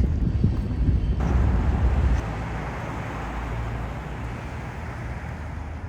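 Steady traffic noise with a low rumble that drops away about two seconds in, leaving an even hiss.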